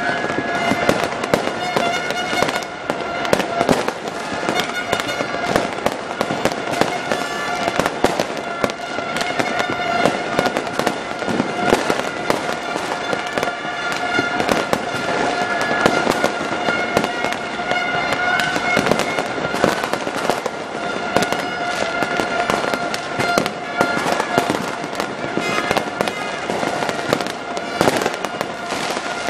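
Fireworks and firecrackers crackling and popping without pause over a large crowd, with a steady droning tone running underneath.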